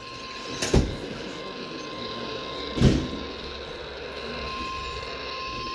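NOAA Weather Radio 1050 Hz warning alert tone: one steady, unchanging pitch that signals a new warning is about to be broadcast. Two thumps break in, about a second in and again near three seconds; they are the loudest sounds.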